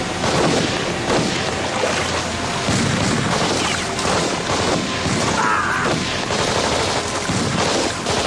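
Movie battle sound effects: dense, irregular gunfire with automatic bursts and explosions, continuing without a break.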